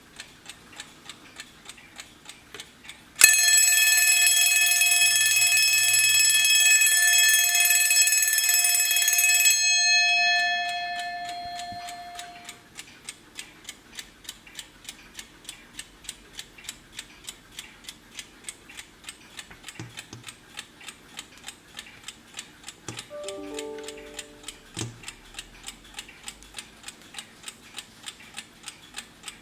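Vintage Wehrle three-in-one alarm clock ticking steadily at about two ticks a second. A few seconds in, its alarm bell rings loudly and without a break for about six seconds, then stops, and the bell rings on and fades over a couple of seconds.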